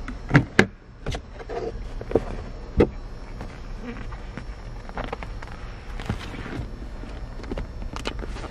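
Glove box latch clicking and the lid opening, followed by a leather owner's-manual folio and paper booklets being handled. The sound is a series of sharp clicks and knocks, the two loudest within the first second, then softer rustling and taps.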